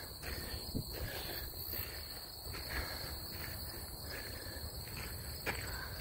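Crickets trilling steadily, with footsteps on gravel.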